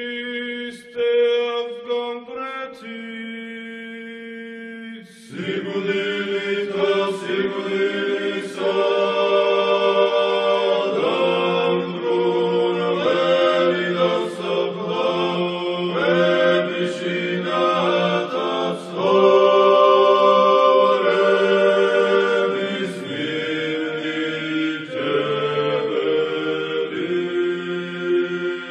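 A choir chanting a hymn in several parts over a held low drone, with long sustained chords; a fuller group of voices comes in about five seconds in.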